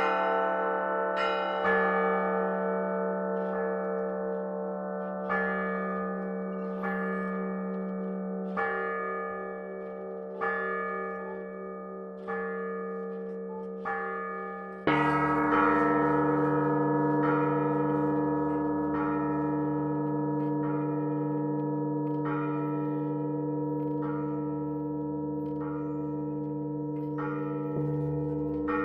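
Russian Orthodox church bells rung by hand. Strokes on smaller bells come about every one and a half seconds over a steady low hum. About halfway through, a larger, lower bell is struck, the sound grows louder and keeps ringing under the continuing strokes.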